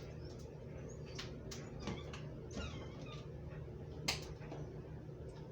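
Oil in a hot skillet crackling with scattered small pops, over a steady low hum; one sharper click about four seconds in.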